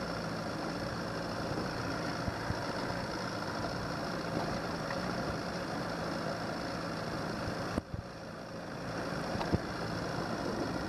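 Johnson 90 hp V4 two-stroke outboard running steadily at slow trolling speed, under a wash of water and wind noise. The sound drops away suddenly about eight seconds in and then builds back.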